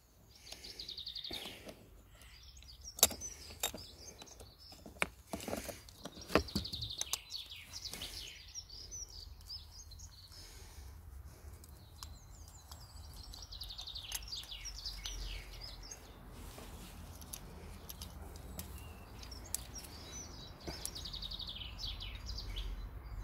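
A songbird repeating a short trilled song phrase about every seven seconds, four times. In the first half, sharp clicks and knocks of small parts being handled; a low rumble rises in the second half.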